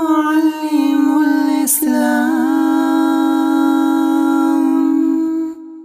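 Voice singing an Arabic nasheed, holding one long note at a steady pitch, with a short click about two seconds in. The singing cuts off suddenly just before the end.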